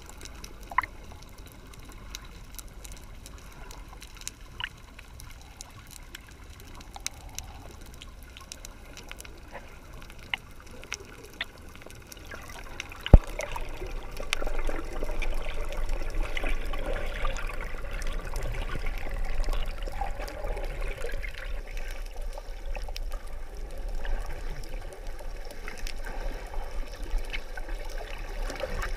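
Muffled underwater water noise heard through a submerged camera, with scattered faint clicks. About halfway there is a sharp knock, and after it a louder churning water sound with a low rumble.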